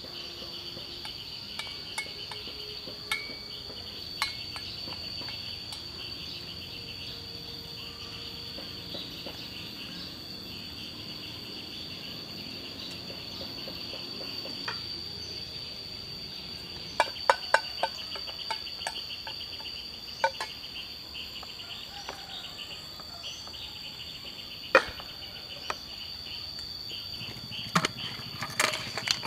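Steady high-pitched chorus of forest insects, crickets or cicada-like, droning without a break. Over it come scattered sharp clicks and clinks of metal camp cookware being handled, a cluster of them about halfway through and more near the end.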